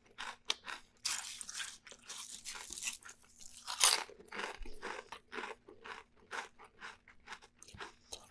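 A person chewing thick potato chips: a quick, uneven run of crisp crunches, with one louder crunch about four seconds in.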